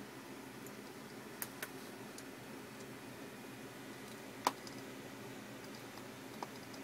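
Four scattered sharp clicks from a computer mouse over a steady faint low hum.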